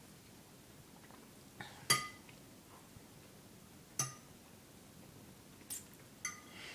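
Cutlery clinking against dishes, about five sharp ringing clinks spread out, the loudest about two seconds in.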